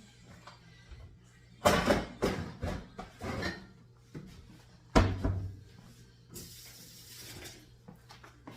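Kitchen clatter: a quick run of knocks and clunks as things are handled and set down, then one sharp knock about five seconds in and a short hiss near the end.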